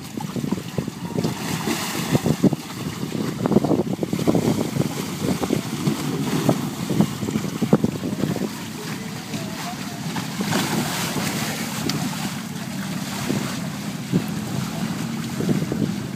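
Inflatable water-walking balls on a pool: irregular muffled bumps and rustling of the clear plastic as the people inside crawl, slip and fall, with water sloshing under the balls.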